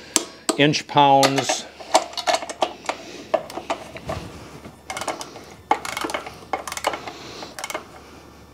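Irregular metallic clicks and clinks of a torque wrench tightening up-pipe bolts on a 7.3 Powerstroke diesel engine, set to 20 foot-pounds.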